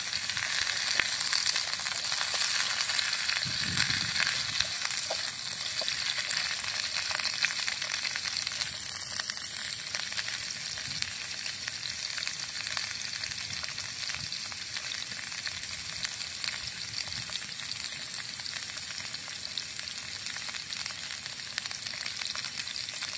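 Chicken feet frying in hot oil in a metal pan: a steady sizzle, loudest in the first few seconds and slowly easing off.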